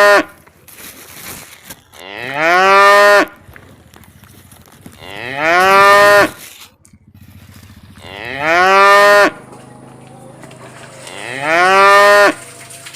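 A cow mooing: four drawn-out moos about three seconds apart, each rising in pitch and lasting about a second.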